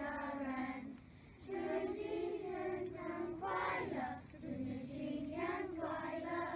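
Children's choir singing together in sung phrases with held notes, pausing briefly about a second in, and stopping near the end.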